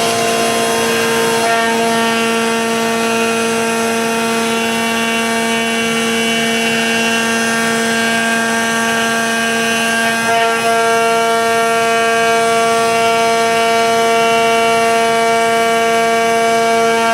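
CNC router spindle running at a steady speed and milling a hard Karri wood blank. It makes a constant high, multi-tone whine over a rushing cutting noise, with a brief dip in level about ten seconds in.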